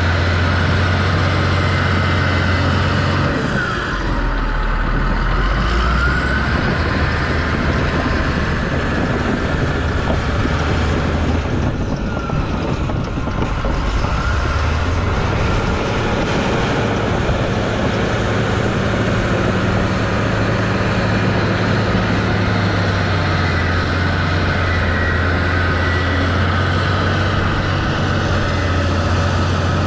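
Caterpillar D6H Series II bulldozer's six-cylinder diesel engine running under load as the dozer pushes and grades dirt. The low engine note drops about four seconds in and comes back up later, with a few high squeals that rise and fall.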